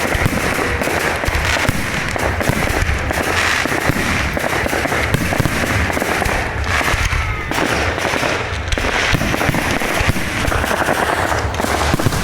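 Dense, rapid crackling and popping that runs on without a break over a low rumble.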